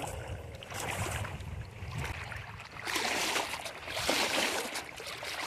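Small lake waves lapping and splashing against the rocks at the shoreline, rising in uneven swells about three and four seconds in, over a low rumble of wind on the microphone.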